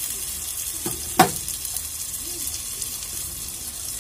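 Onion, tomato and spice masala frying in oil in a karahi, a steady sizzle. About a second in there is one sharp knock, the spatula against the pan.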